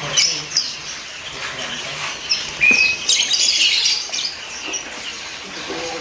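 A crowd of small caged songbirds chirping and squeaking in quick, high calls, thickest about three seconds in, with one short steady whistle just before.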